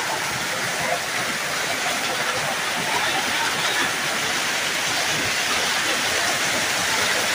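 Heavy storm rain with hail pouring down: a steady, dense hiss with no breaks.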